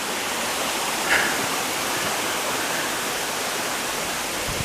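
Waterfall with a steady rush of falling water.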